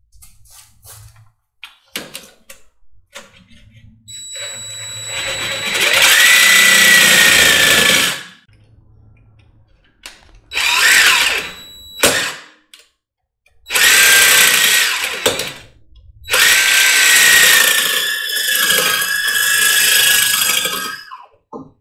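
DeWalt drill cutting a notch into the end of a motorcycle swingarm, run in four bursts of two to five seconds with pauses between. The longest burst comes near the end, and the motor's whine sags slightly in pitch as it bites.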